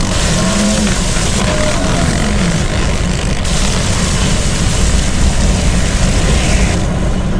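Loud, steady noise of a propeller-driven jump plane's engine mixed with wind rushing in through the open cabin door; the high hiss thins a little near the end.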